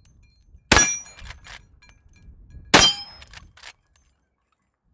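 Two shots from a Henry Big Boy X lever-action carbine in .357 Magnum, about two seconds apart, each with the ring of a struck steel target and followed by a few shorter clicks of the lever being worked.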